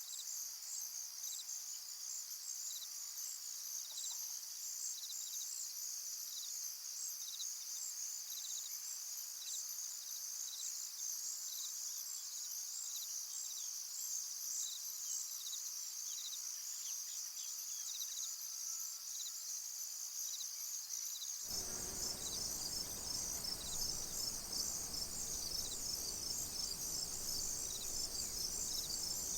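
Crickets chirping in a dense, steady chorus of high pulsing trills, with separate single chirps ticking in at a regular pace. About two-thirds of the way through, a low background noise comes in suddenly, and a further high insect tone joins the chorus.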